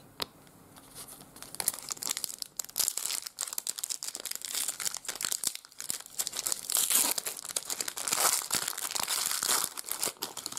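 Foil wrapper of a trading-card pack crinkling and tearing as it is handled and ripped open: a dense, irregular crackle that grows busier in the second half.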